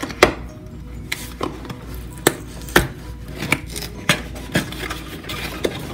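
Cardboard box being torn open by hand along its perforated tab: a series of sharp cracks and crackles, about two a second.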